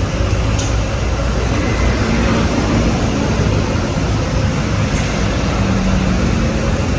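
Harley-Davidson Low Rider ST's Milwaukee-Eight 117 V-twin running steadily at idle through Vance & Hines Short Shots exhaust pipes, a loud, even low rumble.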